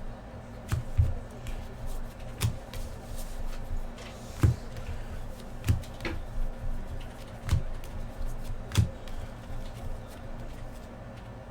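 Trading cards being handled and laid down on a table one by one: a series of light taps and clicks, roughly one every second, over a low steady room hum.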